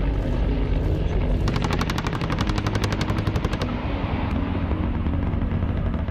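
Attack helicopter flying with a steady low rotor and engine rumble. About a second and a half in comes a burst of rapid automatic gunfire, an even run of fast shots lasting about two seconds.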